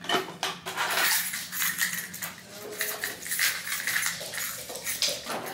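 Small metal objects jingling and clinking in a fast, uneven run of light clicks, as with keys being handled.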